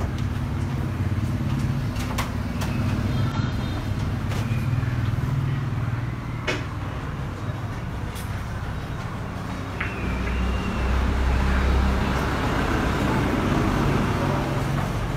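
A motor vehicle engine running steadily, growing louder about ten seconds in, with a few scattered sharp clicks and knocks.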